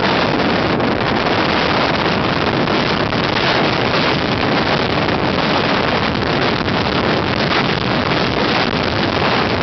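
Strong storm wind blowing across the microphone in a loud, steady rush, over heavy storm surf breaking against a seawall at high tide.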